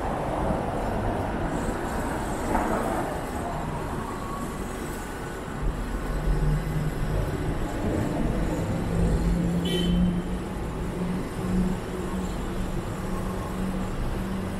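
City street traffic: motor vehicles running past on the road, with a deeper rumble and a low hum coming in about halfway through.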